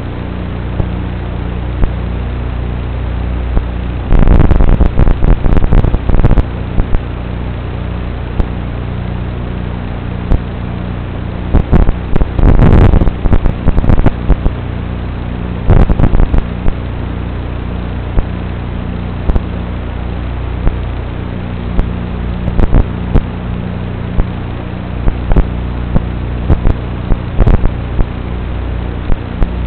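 Steady buzzing hum and hiss of an analog FPV video link's audio channel, broken by loud crackling bursts, about four seconds in, around twelve to fourteen seconds and again at sixteen, with shorter pops later, where the signal breaks up.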